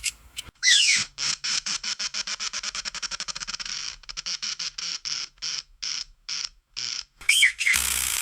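Rubber balloon squeaking as it is rubbed: a fast chattering run of short squeaks that slows after about four seconds into separate squeaks a few per second, with high squeals gliding down in pitch near the start and again near the end.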